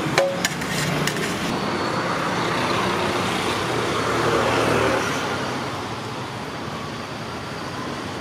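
Steady roadside traffic noise from passing cars and motorbikes, with a few sharp clinks in the first second.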